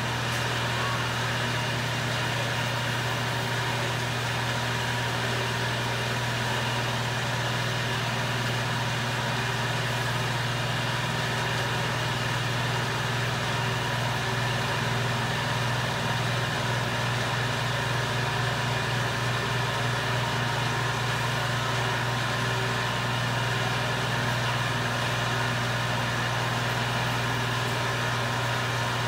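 A steady low machine hum with an even hiss above it.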